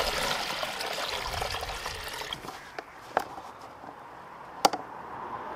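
Water splashing and trickling, fading away over the first couple of seconds, followed by a few sharp clicks and a faint steady hum.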